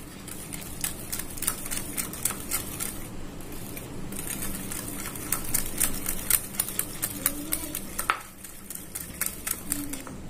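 Wire hand whisk beating butter cream in a glass bowl: rapid clicking and tapping of the wires against the glass, in quick runs that pause briefly about three seconds in and again about eight seconds in. Butter is being creamed with powdered sugar by hand.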